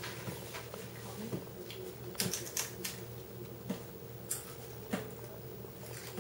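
Scattered light clicks and crackles of tortilla chips being picked out of a plastic tub and crunched, with a faint steady hum underneath.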